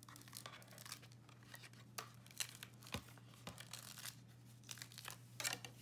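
Faint tearing and crinkling of die-cut paper scraps being poked out and peeled off a thin metal cutting die, with scattered small clicks. A cluster of louder clicks comes near the end.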